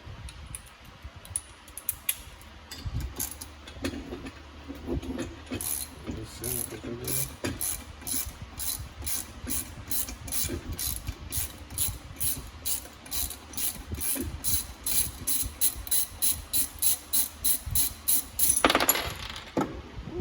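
Hand ratchet wrench clicking in a steady rhythm, about three clicks a second, loosening a fastener on a turbocharger's wastegate actuator. Near the end comes a short, louder scraping noise.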